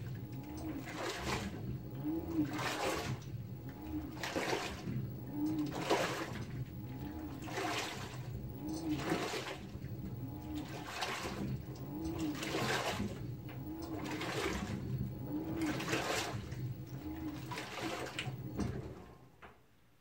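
Direct-drive top-load washing machine agitating a load of clothes in soapy water: a swish of water about once a second as the agitator reverses, over a motor hum that rises and falls with each stroke. The agitation stops near the end.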